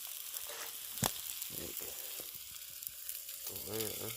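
Chicken and pork chop sizzling on a hot flat rock set in a campfire: a steady high hiss, with one sharp pop about a second in. A short pitched sound, like a brief hum of a voice, comes near the end.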